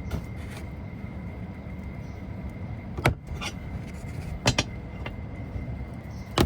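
Plastic retaining clips of a Fisker Ocean's rear bumper insert trim popping loose as the trim is pried up: a sharp snap about three seconds in, a quick pair about a second and a half later, and another near the end, over a steady background hum.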